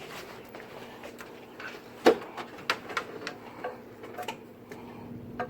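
Irregular light clicks and taps of tools and metal parts being handled, with one sharp knock about two seconds in.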